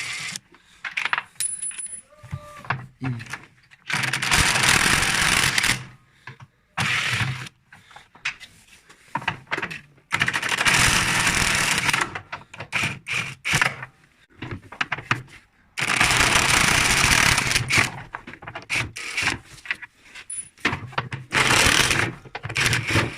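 Electric impact wrench with an extension bar running in bursts, undoing the ring of screws that hold a washing machine's outer tub: four long runs of about two seconds each, with short blips of the trigger in between.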